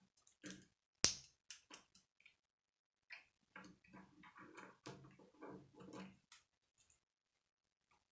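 K'nex plastic rods and connectors clicking and snapping together as they are handled and fitted. There is one sharp snap about a second in, then a run of softer clicking and rattling in the middle.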